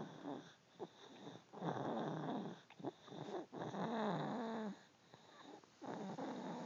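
Snoring: rasping breaths roughly every two seconds, each about a second long and carrying a wavering, droning pitch.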